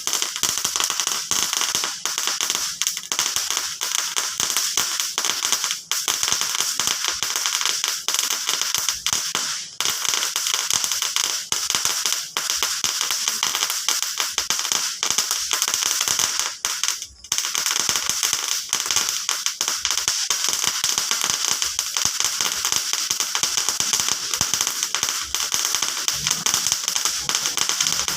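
Firecrackers and fireworks crackling and popping densely and without letup, with a brief lull about seventeen seconds in.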